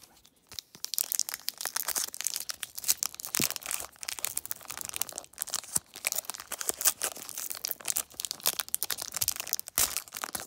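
Foil wrapper of a Donruss trading-card pack crinkling and crackling as it is pulled and torn open by hand, a dense run of sharp crackles starting under a second in. The pack is hard to open.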